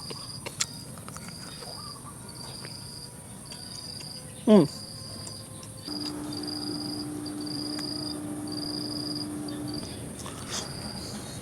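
Insect chirping, a high even chirp repeating a little more than once a second. About four and a half seconds in, one short loud sound drops steeply in pitch. From about six seconds a steady low hum runs for about four seconds.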